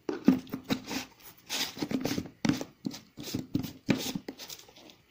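Hands handling a plastic cup against a plastic protein tub: a run of irregular rustles, scrapes and knocks, about three a second, starting suddenly.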